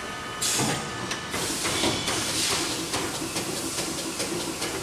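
Amada Aries 245 CNC turret punch press running. A burst of air hiss comes about half a second in, then steady machine noise with a low hum and a run of sharp clicks, about two or three a second, as the carriage moves the sheet table.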